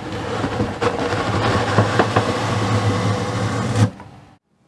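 A heavy-duty guillotine paper cutter's blade shearing down through a thick stack of paper: a loud, continuous crunching grind full of small crackles over a steady low hum, cutting off suddenly a little before four seconds in.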